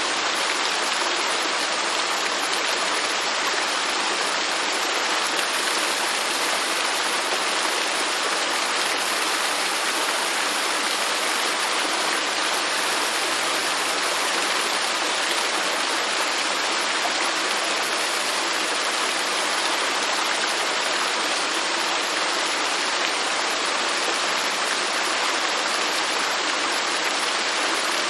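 Garden fountain's water running and splashing steadily, an even, unbroken rush.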